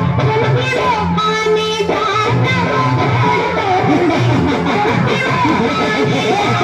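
Loud dance music with a plucked-string melody over a repeating bass beat.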